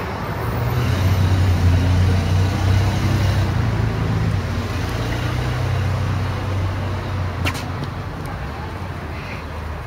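Street traffic: a motor vehicle's low engine rumble swells about a second in and slowly fades over the next several seconds. A sharp click sounds near the end.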